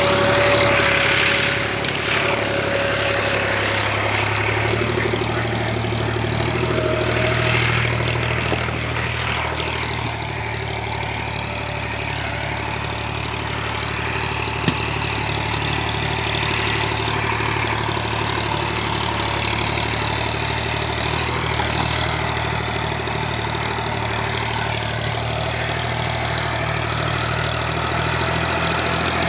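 Fiat 480 tractor's diesel engine idling steadily, with a single sharp click about halfway through.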